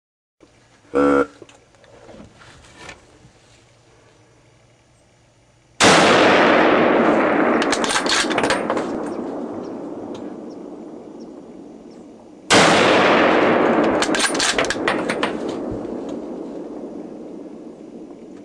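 Two loud gunshots about six and a half seconds apart, each rolling on in a long echo that slowly dies away. A short pitched call sounds once, a few seconds before the first shot.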